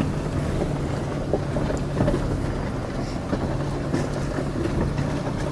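Toyota Tacoma pickup's engine running at a steady low pitch as the truck crawls over a rocky gravel trail, with a few faint clicks of stones under the tyres.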